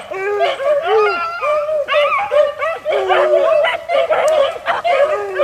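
A pack of beagles baying together, running a rabbit's track: several voices at different pitches overlap in long, drawn-out cries without a break.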